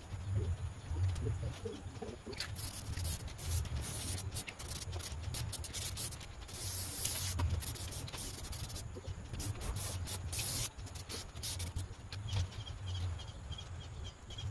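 Brushes scrubbing crumbling old foam off a Chevrolet Silverado's headliner board: a run of rough, irregular scratching strokes, loudest about seven seconds in.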